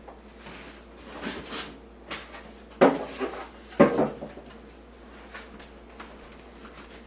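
Objects being handled and set down on a hard surface: a rustle, then two sharp knocks about a second apart, followed by a few faint clicks.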